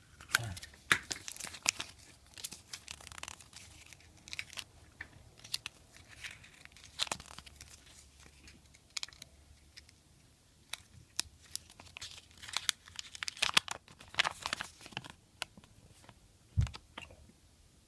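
Crinkling and tearing of a Kinder Surprise egg's foil wrapper, with irregular small clicks and taps as the egg and its toy are handled. There is one low thump near the end.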